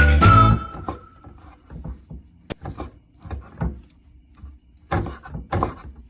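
Background music fading out in the first second, then a scatter of light knocks and taps with a sharp click about two and a half seconds in and a louder cluster near the end, like things being handled and set down.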